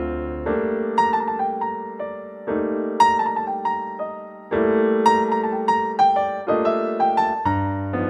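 Background music: a piano playing a slow, gentle tune, with a new chord struck about every two seconds and single melody notes above it.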